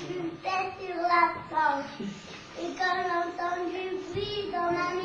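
Young children singing a song, with several long held notes.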